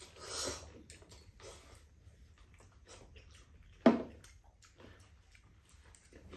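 Two people eating noodles with chopsticks: a slurp from a bowl about half a second in, then soft chewing and small chopstick clicks, and one sharp clack of tableware against the table or pan about four seconds in.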